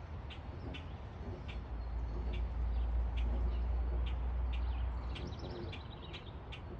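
Small birds chirping, short high chips repeating about every half second, with a quick run of falling notes near the end. Beneath them a low rumble swells in the middle and is the loudest sound.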